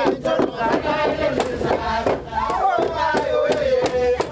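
Group of villagers singing a traditional dance chant together, with a quick steady beat under the voices. About halfway through, one voice carries the melody clearly above the group.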